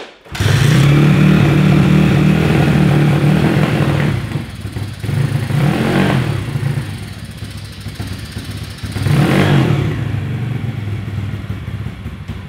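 Honda CT70 mini bike's swapped-in YX140 140cc single-cylinder four-stroke engine starting and running. It is revved twice, then drops back to a lower, wavering idle. It is running poorly at low RPM and bogging at idle, which the owner puts down to overheating or valves needing adjustment.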